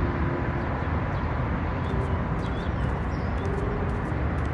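Outdoor ambience: a steady low rumble of distant traffic, with several brief high bird chirps.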